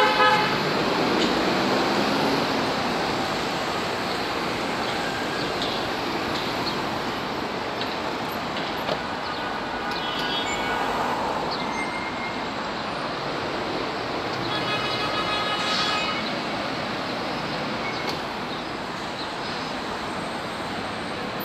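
City street traffic with a tram rolling past at the start, over a steady rumble of passing vehicles. Short horn toots sound right at the start, about ten seconds in and again around fifteen seconds in.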